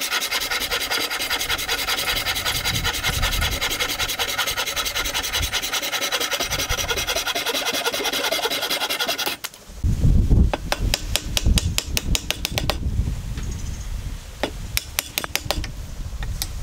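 Hand saw rasping through hardwood in quick, even strokes. About nine seconds in the sawing stops, and a chisel is knocked and worked into the joint, giving a run of sharp knocks and clicks that thin out near the end.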